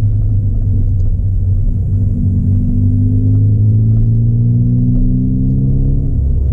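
Ford Fiesta ST180's turbocharged 1.6 EcoBoost four-cylinder, with a 3-inch Gravity Performance exhaust and ITG intake, heard from inside the cabin: a low steady drone, then revs climbing slowly from about two seconds in and dropping back near the end.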